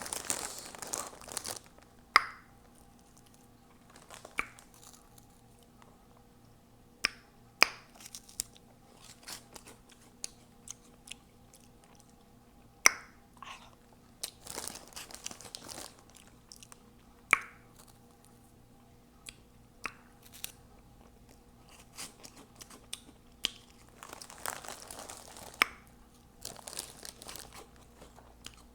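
Close-up chewing of Hot Cheeto Puffs: crunchy bites and wet mouth smacks at irregular intervals, with a few longer stretches of steady crunching.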